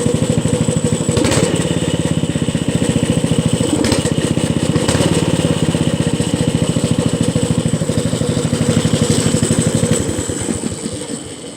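Small gasoline engine running steadily at a constant speed, then fading out near the end.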